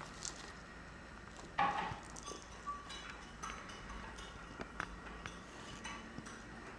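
Faint scattered crinkles, clicks and rustles of tiny kittens pawing and climbing over curled plastic gift-ribbon bows on a denim lap, with one louder rustle about a second and a half in.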